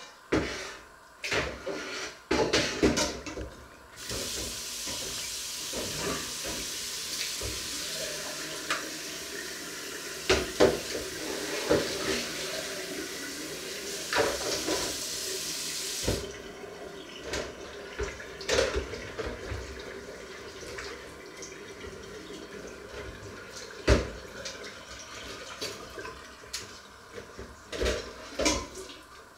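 Kitchen tap running hard into a stainless-steel pot in the sink for about twelve seconds, then more softly while the pot is scrubbed. Sharp metal clanks and knocks of the pot and ladle against the sink come before, during and after the stream.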